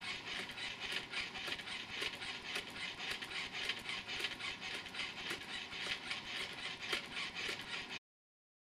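Baxter robot arm's joint motors whirring with a steady hiss as the arm swings back and forth, with repeated clicks and light slaps as a person's palm meets the robot's hand.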